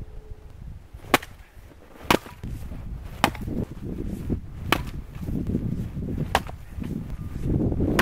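Axe chopping wood: about five sharp strikes, a second or so apart, with low rustling between them.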